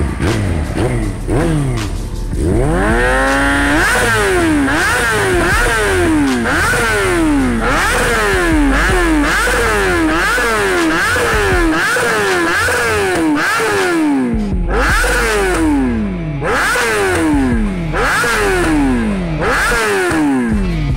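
Motorcycle engine revving sounds cut into a rhythmic electronic music track. One rising rev comes about two seconds in, then a falling rev-like sweep repeats about every 0.7 seconds.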